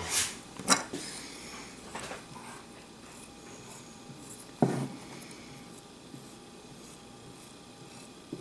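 Skiving knife shaving deer hide stretched over a wooden cone around the eye: a few short scrapes and clicks, the sharpest about three quarters of a second and four and a half seconds in.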